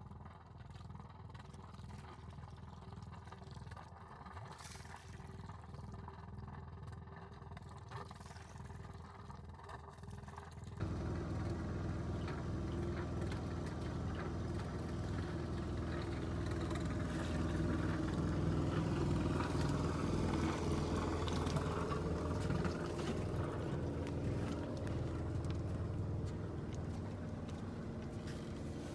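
Boat's inboard engine running steadily, with water splashing from a hull outlet at first. About eleven seconds in the sound jumps to a much louder, fuller low rumble that holds steady.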